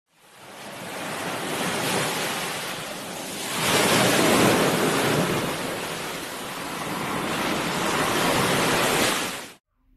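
Ocean surf: waves washing in and receding in slow swells. It fades in at the start and cuts off abruptly near the end.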